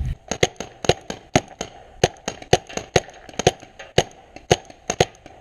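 Several paintball markers firing at once: an irregular string of sharp pops, about four a second.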